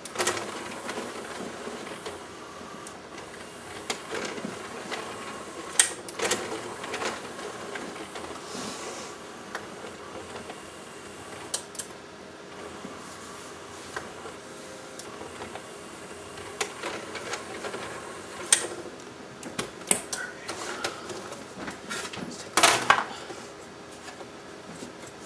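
Scattered clicks, knocks and rattles of plastic and metal parts as the opened Sony Laserdisc player's mechanism and clamper bar are handled, with a loud cluster of clatter near the end.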